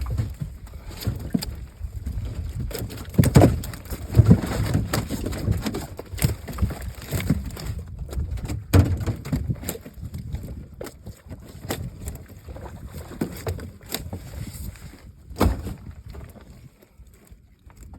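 Irregular knocks and thumps against a small boat, with a low rumble.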